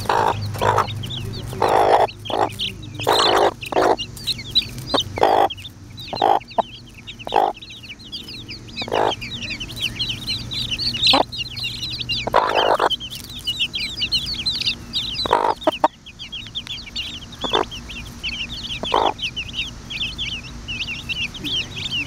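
A mother hen clucking in short single clucks, about one a second at first and sparser later, the food call that brings her chicks to a tidbit, over the continuous high peeping of her many young chicks.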